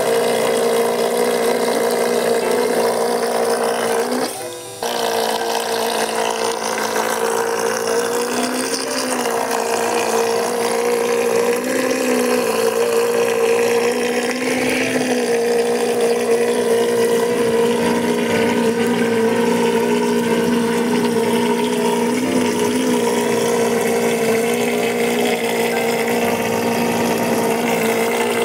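Homemade 12-volt water pump, a 3D-printed impeller housing driven by an RS-775 DC motor, running with a steady whine over the rush and splash of the jet of water it throws out. The sound breaks off briefly about four seconds in, then carries on.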